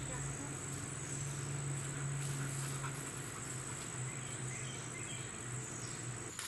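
Steady high-pitched drone of insects such as crickets, over a faint low hum.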